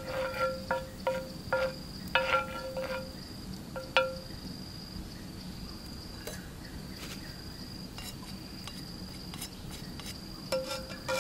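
A series of short, ringing clinks, about nine in the first four seconds and more starting again near the end, like a hard utensil striking something that rings at a fixed pitch. Under them an insect keeps up a steady high-pitched trill.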